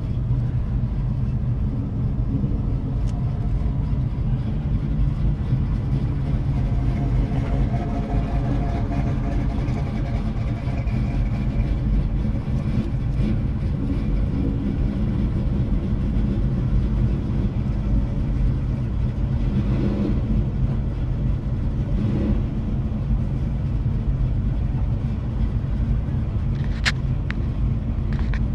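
Steady low rumble of a car idling, heard from inside its cabin, with a sharp click near the end.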